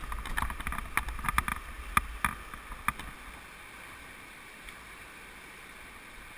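About a dozen sharp knocks and clunks on the hull of an Old Town Appalachian canoe, bunched into the first three seconds as the paddle is picked up and knocked against the boat, followed by the steady rush of a fast, flooded creek.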